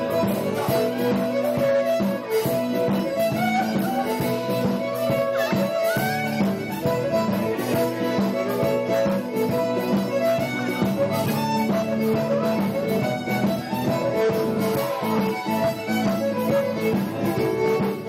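Live ceilidh band playing a dance tune with a steady beat.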